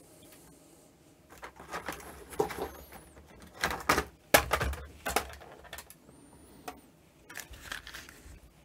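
Small plastic model-railway parts being handled: an irregular run of light clicks and knocks, loudest about four seconds in.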